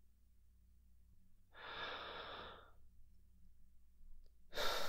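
A man breathing close to the microphone: a long breath out like a sigh about a second and a half in, then a sharper breath near the end.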